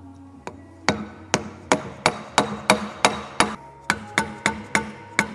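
Hammer striking a seal driver to drive a new seal into a rear axle housing: a run of about fourteen sharp, ringing metal blows, roughly three a second. They start about a second in, with a brief pause midway.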